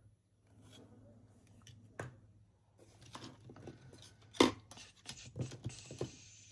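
Small clicks and taps of nail-stamping tools and polish bottles being handled on a tabletop, with one sharper knock about four and a half seconds in.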